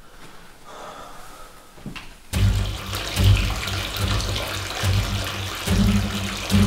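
Whirlpool bathtub jets running, water rushing and bubbling in the tub. It cuts in suddenly a little over two seconds in, over a low hum that swells and fades.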